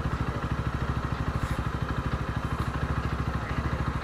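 Lexmoto ZSX-F 125's 125cc single-cylinder engine idling at a standstill, a steady rapid pulsing beat.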